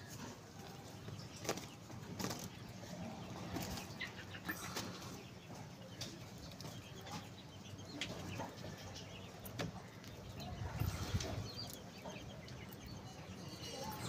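Chickens in a yard: faint clucking from a rooster and other fowl, with scattered short taps and rustling.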